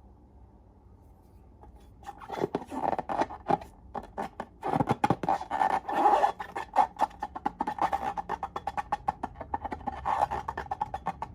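Slime being squeezed and worked by hand, giving quick irregular wet clicks and pops of trapped air. The clicking starts about two seconds in and goes on densely.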